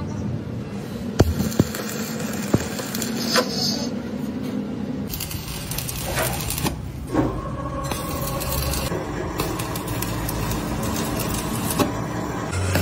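Stick welding arc crackling and hissing as weld is laid inside the bore of a truck axle part, over a steady electrical hum, with a few sharp clicks in the first seconds. The sound changes abruptly several times.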